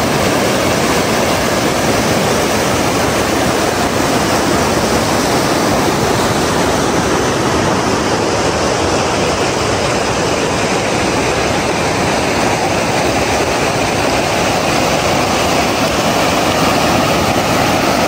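Fast mountain river rushing over a rocky bed: a loud, steady rush of water.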